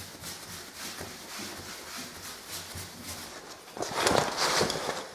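Sanded plaster wall being dusted off by hand in quick, repeated swishing strokes, louder for about a second near the end.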